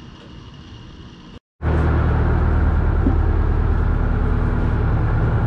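A fishing boat's engine running with a steady low drone, heard inside the cabin. It comes in abruptly about a second and a half in, after faint steady background noise.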